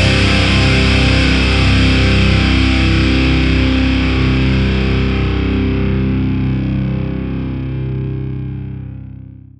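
Heavy metal music ending on a distorted electric guitar chord left to ring, fading steadily and dying away near the end.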